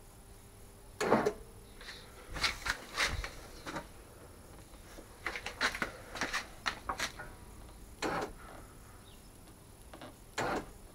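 Handling noises: short knocks, clicks and rustles in scattered clusters, from hands working with wiring, plastic trim and papers.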